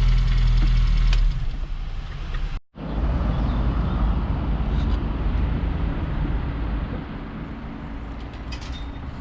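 A Reliant Regal's small four-cylinder engine idling steadily, dying away after about a second. After a sudden break, a steady rush of vehicle and road noise takes over and slowly fades.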